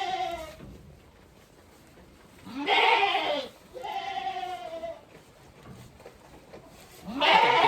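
A goat bleating repeatedly while waiting to be fed, each bleat with a wavering pitch. One bleat trails off at the start, two come back to back about three seconds in, and another starts near the end.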